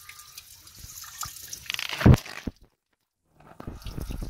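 Shallow water trickling and dripping over mossy ground, with small splashes as a catfish moves in it. A louder thump about two seconds in, then the sound drops out for under a second.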